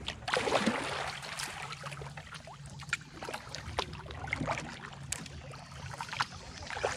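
Kayak paddle strokes in still swamp water: a swishing splash as the blade goes in about half a second in, then scattered drips and small splashes from the paddle.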